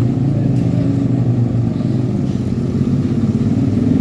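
A road vehicle's engine running steadily with a low, even drone, most likely a diesel truck engine.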